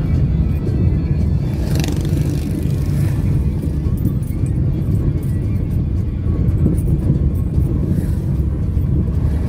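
Steady low rumble of a car's engine and tyres while driving, heard inside the cabin from a phone on the dashboard, with music playing along with it.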